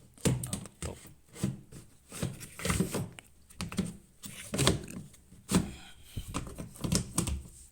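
A run of irregular knocks and clattering thumps, about a dozen in all, some close together.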